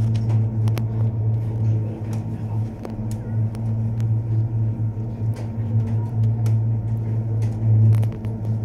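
Steady low hum inside a moving tricable gondola cabin as it travels along its cables, with a few faint clicks.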